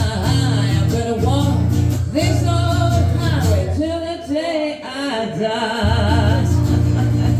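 Live band playing: singing over guitar and a steady bass line. The bass drops out briefly in the middle.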